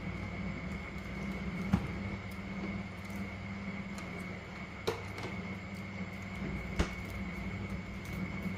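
Spotted doves shifting in bamboo cages: three sharp taps, about two, five and seven seconds in, over a steady low hum and a faint high whine. The doves do not coo.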